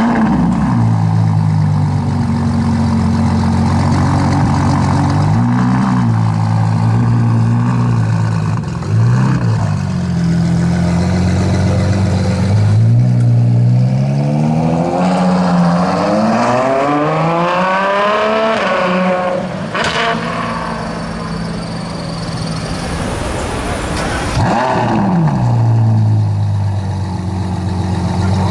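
Ferrari 812 Superfast's V12 engine flaring sharply, idling with short throttle blips, then revving in one long rising sweep as the car accelerates away, with a sharp crack as it drops off. Another quick blip follows before it settles back to a steady idle.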